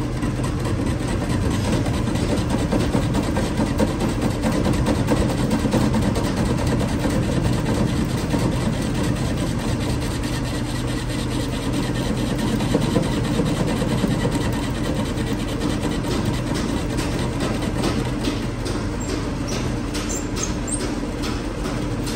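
A machine or motor running steadily with an engine-like hum, with light rapid ticking in the last few seconds.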